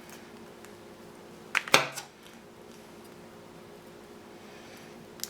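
Small hard model-kit parts clicking as they are handled: two sharp clicks about a second and a half in, the second louder, and a faint click near the end.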